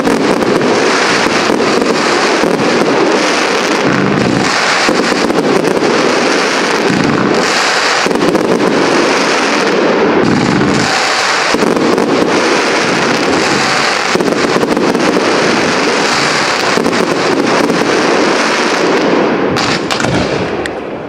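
Fireworks display: a dense, continuous barrage of rapid bangs and crackle, easing off near the end.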